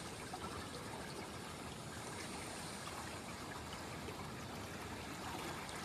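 Steady rush of a wide, fast-flowing river swirling past a rocky bank.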